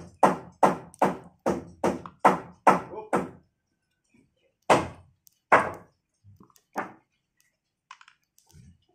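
Rhythmic knocking, about two to three strokes a second, that stops a little over three seconds in, followed by a few single knocks.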